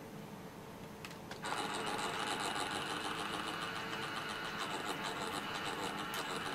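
Old NEC laptop switching on: two short clicks about a second in, then its cooling fan starts and keeps up a steady whir.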